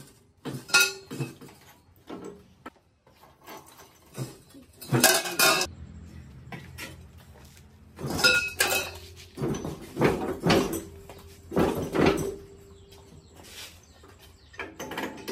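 Irregular metallic clanks and clatters of a pipe wrench with a long extension bar being forced against the rusted fittings of an old air compressor pump. The loudest knocks come about five seconds in and again from about eight to twelve seconds in.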